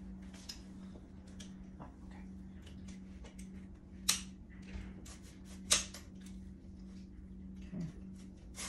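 Small clicks and taps, with two sharper knocks about four and about six seconds in, as the plastic spacer and metal parts of an electric scooter's handlebar and stem are handled and fitted together. A steady low hum runs underneath.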